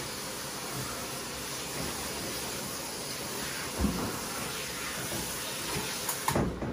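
Handheld shower sprayer running steadily, its water hitting a small dog's wet coat in a grooming tub. A single thump comes about four seconds in, and a short clatter near the end.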